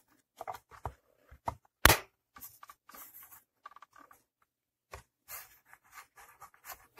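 Small plastic clicks, taps and rubbing as the temperature dial and button of a steam iron are pressed and fitted into place by hand, with one louder click about two seconds in.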